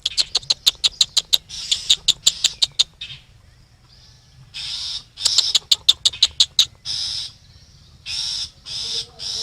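Long-tailed shrike calling: runs of rapid, harsh chattering notes at about ten a second, in three bursts, then a few short, rasping calls near the end. The calls come from the parent bird at its nest.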